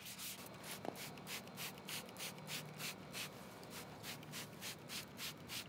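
Hand trigger spray bottle squirting water onto bare, stripped wood, a quick short hiss with each pull of the trigger, about four squirts a second.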